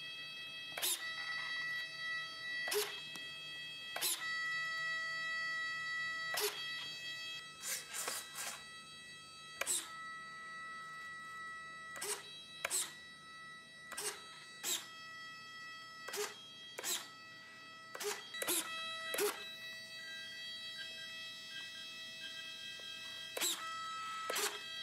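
Flap servos on a ParkZone Corsair foam RC plane moving the flaps up and down: about twenty brief buzzes at irregular spacing, some in quick pairs, over a steady high electronic whine.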